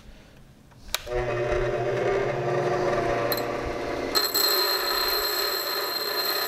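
Delta bench grinder starting up about a second in and then running with a steady hum. From about four seconds in, the head of a stainless steel bolt is held against the grinding wheel, adding a high hiss and ring as the manufacturing marks are ground off.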